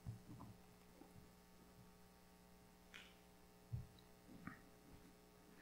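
Near silence with a steady low hum, broken by a few soft thumps and clicks of people moving and handling things at a wooden pulpit; the loudest is a dull thump a little under four seconds in.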